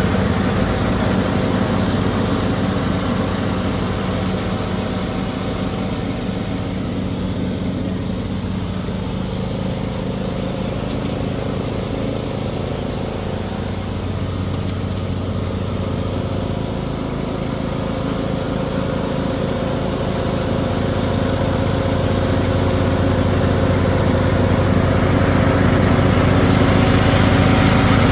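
John Deere riding lawn tractor running steadily while mowing, its engine hum fading as it drives away and growing louder again as it comes back near the end.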